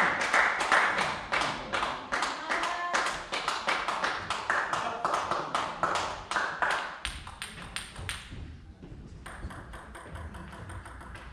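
Spectators clapping in a fast, steady rhythm of about four or five claps a second, with a few voices, fading out over the second half.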